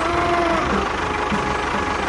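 Tractor diesel engine chugging at a low idle, a steady knock about four or five times a second.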